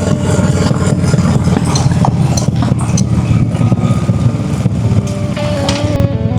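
Honda Shadow V-twin motorcycle engine running steadily, with a deep, even exhaust note and a slight change in revs near the end.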